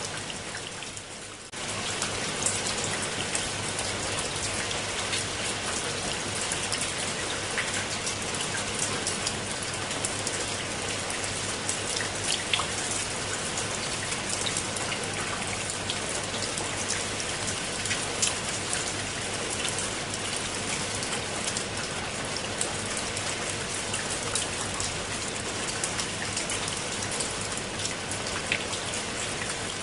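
Steady rain falling on wet concrete steps and leafy plants, with many sharp individual drop hits scattered through it. The level dips briefly and jumps back about a second and a half in.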